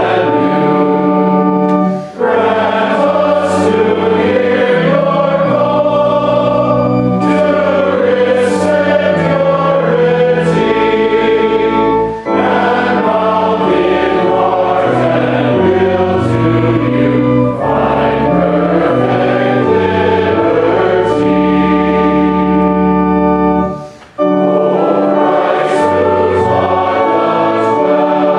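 A large group of voices singing a hymn in sustained phrases with organ accompaniment, pausing briefly between lines about 2, 12 and 24 seconds in.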